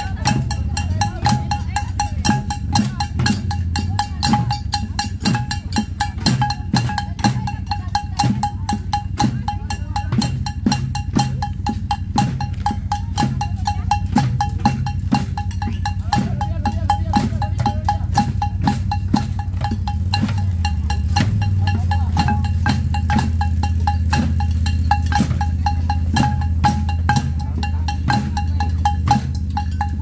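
A makeshift tin band (banda de hojalata) beating a fast, steady marching rhythm on tinplate drums and cans. A vehicle engine's low hum runs underneath and grows louder about twenty seconds in.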